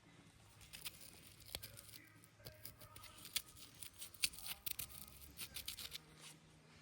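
Irregular light clicks and scrapes of parts and tools being handled around a partly dismantled engine, over a faint steady low hum.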